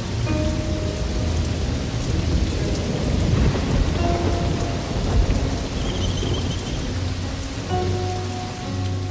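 Heavy rain pouring down steadily, with a low rumble of thunder that swells about three seconds in and fades after about five.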